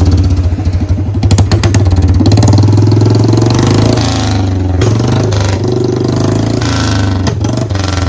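Royal Enfield Bullet Standard 350 single-cylinder engine running loud with its silencer removed, exhausting through a bare C-bend pipe. It is revved up and down several times, the exhaust beats quickening and slowing between throttle blips.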